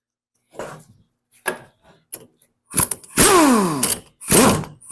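Rebuilt mower-deck blade spindle with new bearings, spun by hand: a few light knocks of metal parts being handled, then two loud whirring spins about three and four seconds in, each falling in pitch as the shaft coasts down, freely and without shake.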